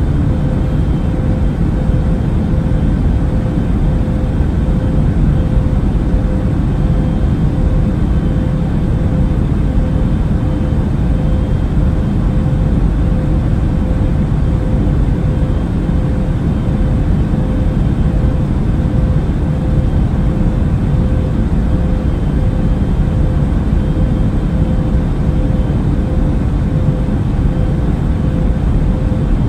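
Jet airliner cabin noise: a steady, even rumble of engines and airflow with a constant hum running through it.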